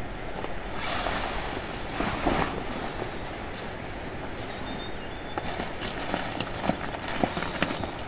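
A heavy canvas tarpaulin rustling and swishing as it is shaken out and spread over a plastic tarp, over a steady outdoor hiss. Near the end come scattered crackles as the tarps are pressed down under hands and knees.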